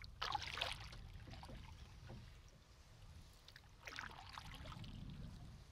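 Canoe paddle strokes on calm water: two soft splashing pulls of the blade through the water, one just after the start and one about four seconds in.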